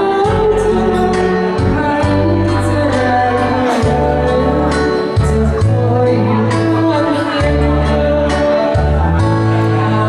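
A woman singing a Thai song into a microphone over a karaoke backing track, with a bass line that changes note every second or two.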